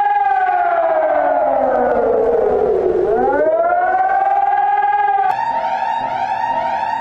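Emergency alert siren tone, one wailing pitch that slowly falls for about three seconds and climbs back over the next two. About five seconds in it cuts abruptly to a different alarm: a steady tone overlaid with quick upward sweeps repeating about one and a half times a second.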